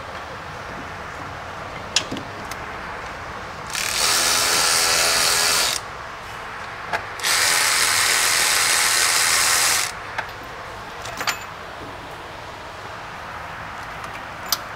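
Electric ratchet zipping out a 15 mm alternator mounting bolt in two runs, of about two and about two and a half seconds, with a few sharp metal clicks before and after as the tool is fitted to the bolt.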